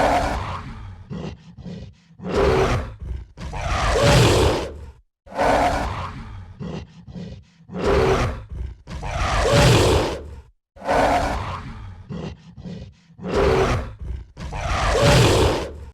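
A gorilla roaring over and over, about nine loud roars of roughly a second each, one every second and a half to two seconds, with short clicks and knocks in some of the gaps.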